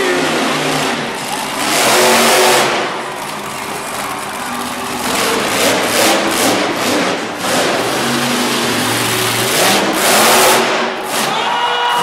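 Monster truck engine revving hard and easing off again and again as the truck is driven around the arena. The surges of revving are loudest about two seconds in and again near ten seconds.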